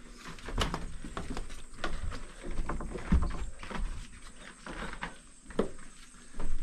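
Footsteps on a wooden deck, an irregular series of knocks and clicks.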